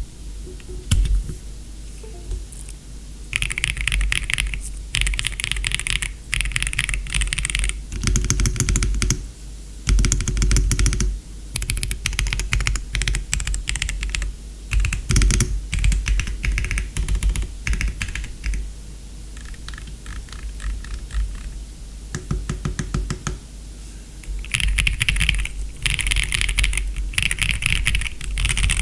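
Typing on a Royal Kludge R65 mechanical keyboard with Chartreuse switches: fast runs of keystrokes in bursts of a few seconds, with short pauses between them.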